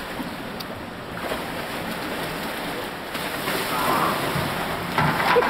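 Water splashing and sloshing as a small whitewater kayak is hand-rolled upright, over a steady wash of indoor-pool noise; the splashing grows louder in the second half.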